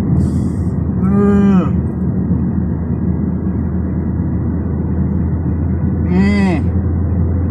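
A sleepy toddler gives two drawn-out whimpering moans, each rising then falling in pitch, about a second in and again near the end, over the steady hum of a car cabin.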